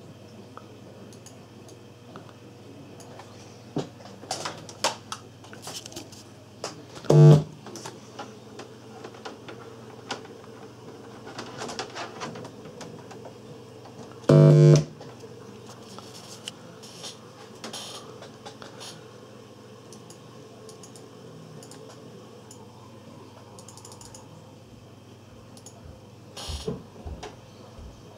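Two short, loud pitched tones from desktop computer speakers, about seven seconds apart, over a steady low hum. Scattered light clicks and a few knocks are heard near the end.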